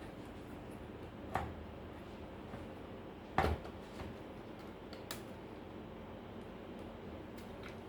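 A few light clicks and knocks from small parts being handled, the loudest about three and a half seconds in, over a faint steady hum.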